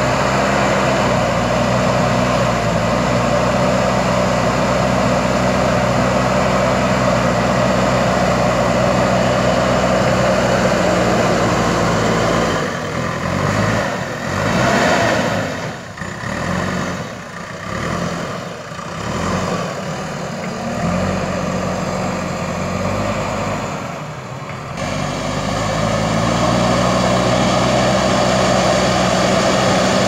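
JCB backhoe loader's diesel engine running steadily at working speed. Through the middle stretch its revs rise and fall unevenly as the front loader bucket tips out soil, then it settles back to a steady drone.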